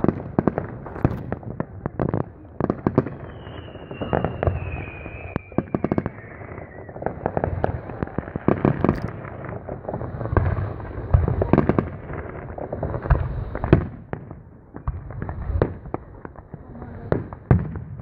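Aerial fireworks going off, a dense irregular run of bangs and crackling. A few seconds in, a high whistle slides slowly down in pitch.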